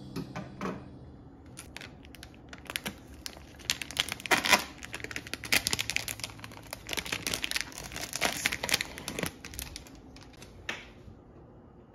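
Thin plastic label being torn and peeled off a plastic drink bottle, crinkling in a run of sharp crackles that are loudest about four and a half seconds in, followed by a single click near the end.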